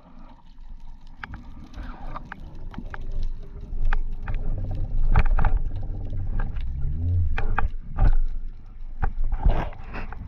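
Underwater sound picked up by a camera on a freediver's speargun: a steady low water rumble with scattered clicks and knocks as the diver swims down. A short rising-and-falling whine comes about seven seconds in.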